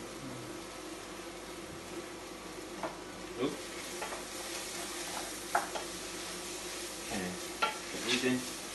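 Chopped vegetables sweating in oil in a pot, sizzling while being stirred with a spoon. There are scattered light knocks of the spoon against the pot, and the sizzle grows brighter a few seconds in.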